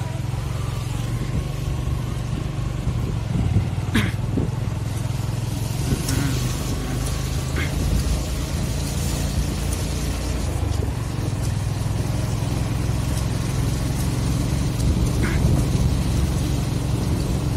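A motorbike engine running steadily while riding along a road, with wind rushing on the microphone and a few short clicks.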